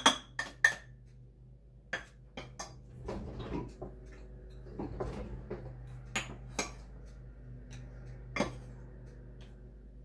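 A measuring cup rapped several times in quick succession against the rim of a food processor bowl to shake out cornstarch. This is followed by scattered light clinks and soft scraping as more is scooped and levelled from a container.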